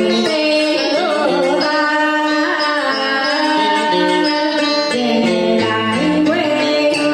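A woman singing a Vietnamese song into a microphone with a wavering, gliding voice, over amplified plucked-string accompaniment.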